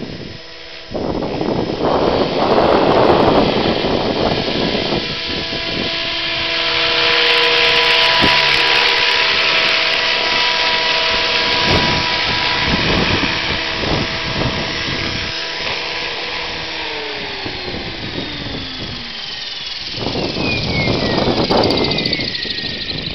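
RC helicopter's motor and rotor whine holding a steady pitch, then dropping in pitch, with gusts of wind buffeting the microphone near the start and again near the end.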